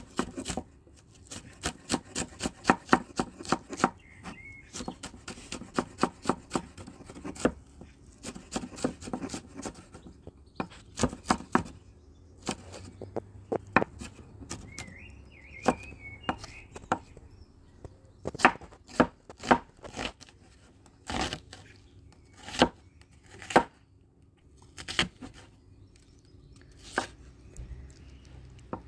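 Kitchen knife chopping vegetables on a cutting board: quick runs of sharp strokes, several a second, then slower single chops with pauses between.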